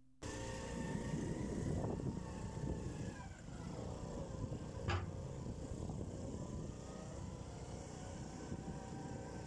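Road and wind rumble from a camera riding along a narrow lane, with a faint whine that dips and then rises in pitch. A sharp knock about five seconds in.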